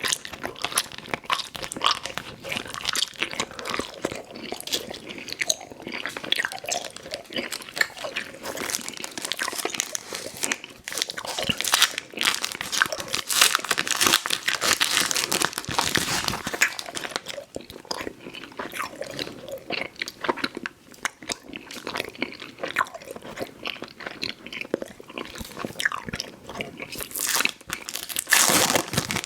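Close-up chewing and biting of Fruit Roll-Ups fruit-leather candy: a dense, uneven run of sticky, wet mouth clicks and crackles.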